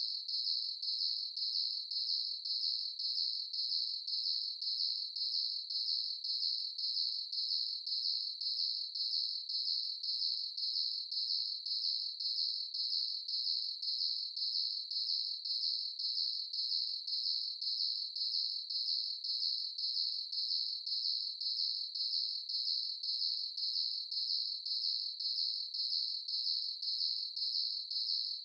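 Crickets chirping: a high, even trill that pulses in a steady rhythm without a break.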